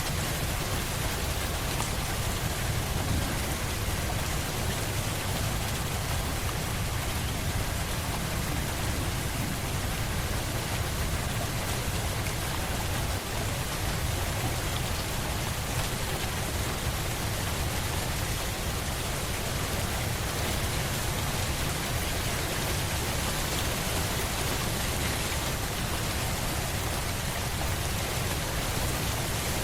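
Steady rain, an even hiss of falling water with a stronger low rumble underneath, unchanging throughout.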